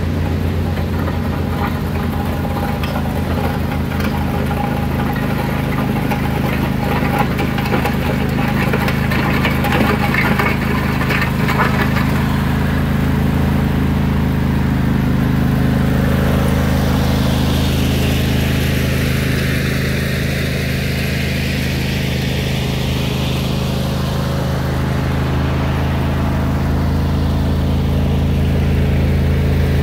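Riding lawn tractor's engine running steadily while it works a front blade over the gravel driveway.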